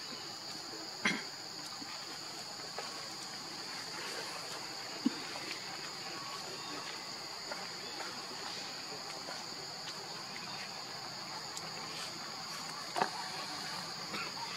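Steady, high-pitched insect drone from a chorus of cicadas or crickets, with a few short, sharp sounds about a second in and again near the end.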